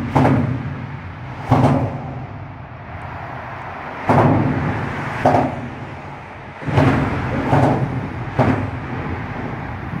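Cars driving over a bridge expansion joint, heard from beneath the steel girder deck: a steady traffic rumble broken by about seven sharp clunks with a short ring after each, some coming in quick pairs.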